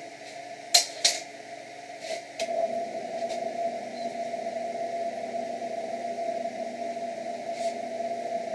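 Benchtop drill press motor running with a steady hum. A few sharp knocks come about a second in and again about two seconds in. About two and a half seconds in, the sound grows louder and rougher as the bit is fed into the steel square tube.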